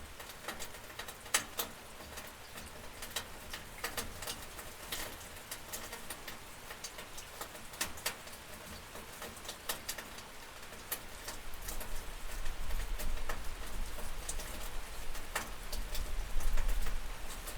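Rain pattering on a window, a steady hiss with many separate drop ticks. A low rumble builds in the second half.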